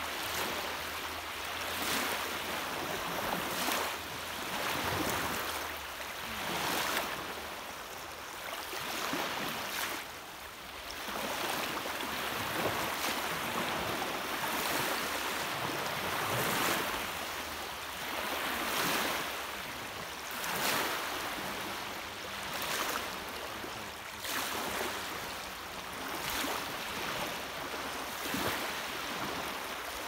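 Small sea waves breaking and washing up a sandy shore at the water's edge, the surf swelling and easing every couple of seconds.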